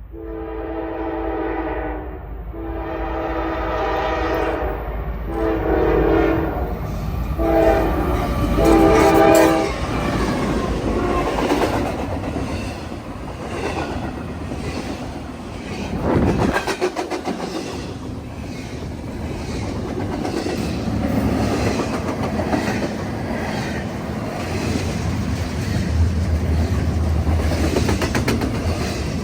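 Diesel locomotive horn blowing four blasts in the long, long, short, long grade-crossing pattern, then the train passing close by: engine rumble and wheels clicking over rail joints.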